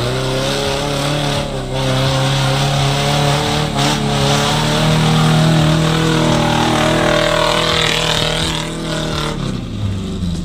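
Small 4x4 off-roader's engine working under load as it drives along a muddy trail, revs climbing in the middle and easing off near the end.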